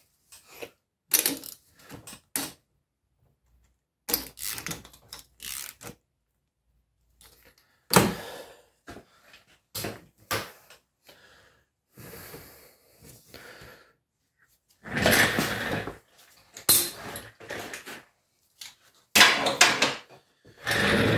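Metal hand tools clinking, clattering and scraping in short irregular bursts, with silent gaps between.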